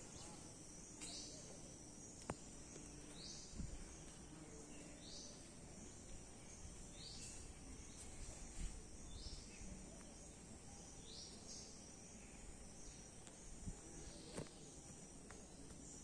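Faint outdoor insect ambience: a steady high buzz with a short rising chirp that repeats about every two seconds, and a few soft clicks.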